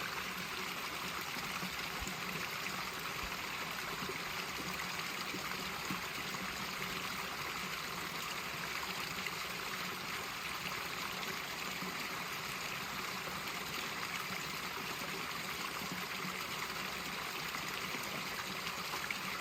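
Small side stream of water falling and splashing over rocks in a steady trickle.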